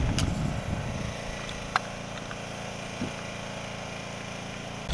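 A pressure washer's small engine running steadily, a constant drone. Wind buffets the microphone in the first second, and there is one sharp click a little under two seconds in.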